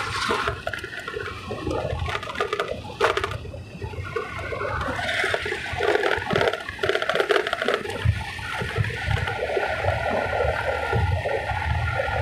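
Wind buffeting the microphone of a phone held on a moving scooter: an uneven rumbling rush that swells and falls, with a sharp crackle about three seconds in.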